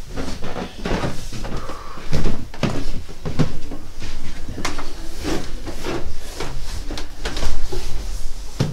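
A run of irregular knocks and thumps, a few a second, the two loudest about two seconds in and near the end, over a steady low hum.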